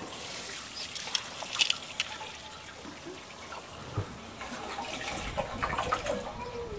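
A metal ladle stirring chicken pieces in sauce in an aluminium pot: wet sloshing of the liquid, with a few sharp clicks about a second in.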